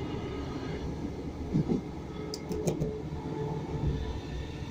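Class 313 electric multiple unit running along the line, heard from inside the carriage with a window open: a steady rumble from wheels and track, a faint steady whine, and a few light clicks a little over two seconds in.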